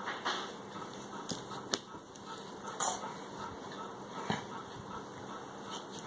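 Quiet room noise with a few soft knocks and rustles from a child moving about on a bed.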